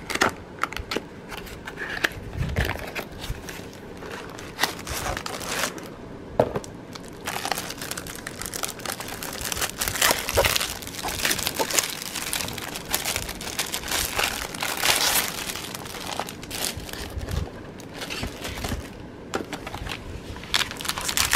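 Clear plastic packaging of a paint-by-numbers kit crinkling and crackling irregularly as it is handled and unwrapped by hand.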